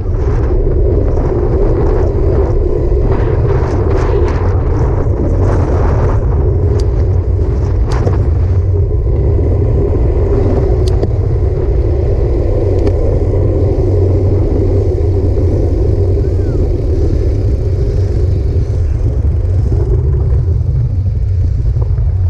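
Steady, loud wind and road rumble on a handlebar-mounted camera of a road bike riding along a busy road, with a few sharp clicks in the first eight seconds or so.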